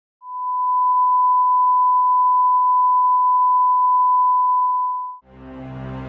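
A steady, loud 1 kHz test tone of about five seconds, a single pure pitch that stops abruptly, typical of line-up tone at the head of a video master. Background music with a low sustained drone comes in right after it, near the end.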